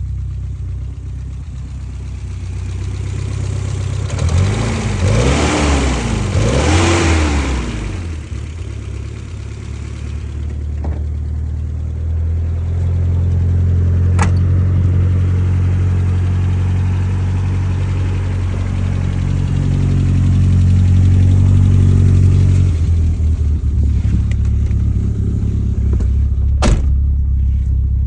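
BMW E30 M3's S14 four-cylinder engine running, revved up and back down three times between about four and eight seconds in, then running steadily. Two sharp clicks sound over it, one about midway and one near the end.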